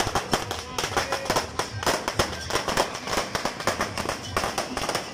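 Fireworks and firecrackers going off in a rapid, irregular string of overlapping bangs and crackles, several a second.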